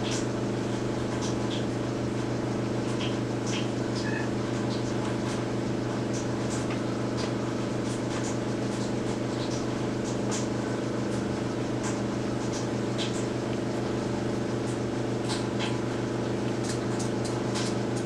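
Bipolar stepper motor driven by a Pololu Tic T500 controller, spinning at a steady speed and giving off an even hum of several low tones, set up to imitate the rotor drone of the Ingenuity Mars helicopter. Faint scattered ticks sit over the hum.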